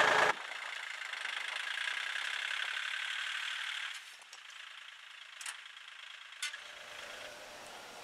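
Kubota L2250 tractor's diesel engine running steadily, cut off suddenly about halfway through, leaving a quieter stretch with two short sharp clicks.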